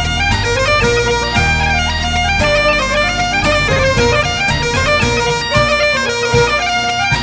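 Background music: bagpipes playing a melody over a steady drone, with a low pulsing beat underneath.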